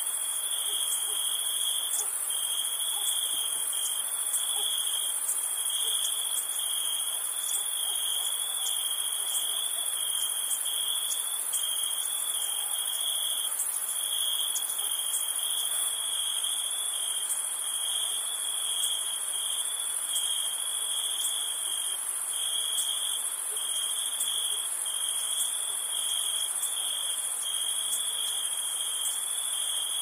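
Night-time chorus of crickets and other insects: a steady, high, gently pulsing trill with a thinner, even higher buzz above it. The mix shifts slightly about halfway through.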